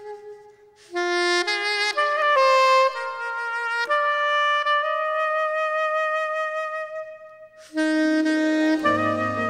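Background music: a saxophone-like lead playing slow held notes in phrases, with a short pause after each phrase and a lower accompaniment coming in near the end.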